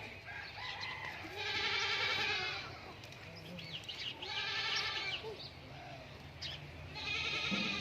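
Sirohi goats bleating: three long, wavering bleats a couple of seconds apart.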